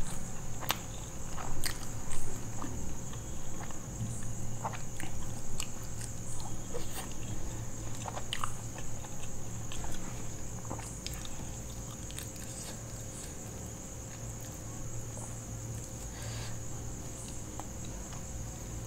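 Crisp deep-fried aloo kachori crust being torn apart by hand, giving scattered sharp crackles that are densest in the first half and thin out later.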